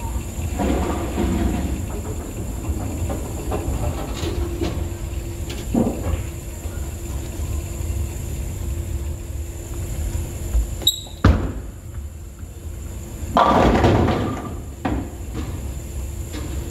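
Low rumble of a bowling ball rolling down a wooden lane, then a loud crash of AMFlite II string-pins scattering about thirteen seconds in, lasting about a second. A sharp click comes shortly before the crash.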